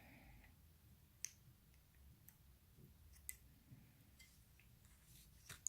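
Near silence with three faint, sharp clicks of small repair tools against phone parts, about a second in, about three seconds in, and near the end.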